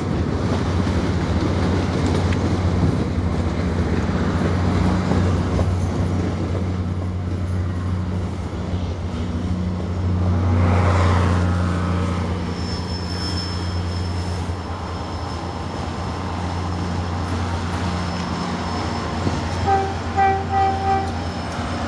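MBTA commuter train passing close underneath: the diesel locomotive's steady low engine drone under the rumble of the passing coaches, which swells about halfway through. Near the end there are four short toots.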